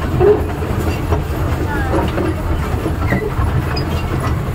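Amusement-park toy train running along its track: a steady low rumble of the ride.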